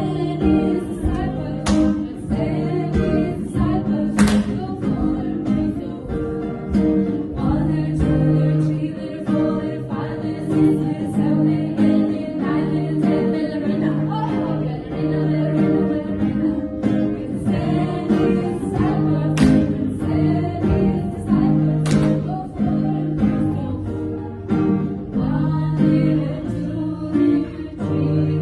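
Music: a song with several voices singing together over guitar, with a few sharp percussive hits.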